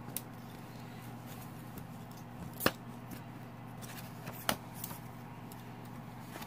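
Hard plastic robot-kit parts being handled, giving a few sharp clicks, the loudest about two and a half seconds in and another near the two-thirds mark, over a steady low hum.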